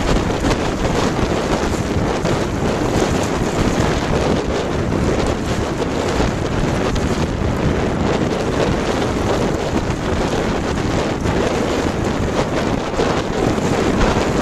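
Strong wind buffeting the microphone of a smartphone fixed to a small sailboat's gunwale, a loud steady rumble, with water rushing along the hull beneath it.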